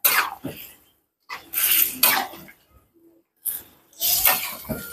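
Metal spatula and ladle stirring vegetables through boiling broth in a steel wok: a few separate scraping, splashing strokes with short pauses between them.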